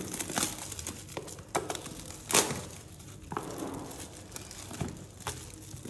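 Clear plastic shrink-wrap being peeled and pulled off a cardboard box, crinkling irregularly, with one louder crackle a little over two seconds in.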